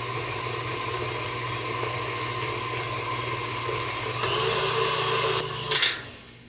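Electric tilt-head stand mixer running steadily as it beats cocoa buttercream frosting. It gets louder with a higher whine about four seconds in, then a click near the end and the motor winds down and stops.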